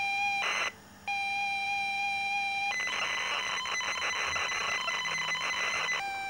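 ZX Spectrum loading a program from cassette tape. A steady high-pitched pilot tone is broken about half a second in by a short burst of data and a brief gap, then resumes. From about three seconds in comes a dense rasping data stream, and the pilot tone returns near the end.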